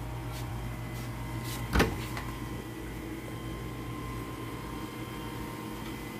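A single sharp knock of a wooden cabin door about two seconds in, with a couple of faint clicks just before it, over a steady low hum with faint high whining tones.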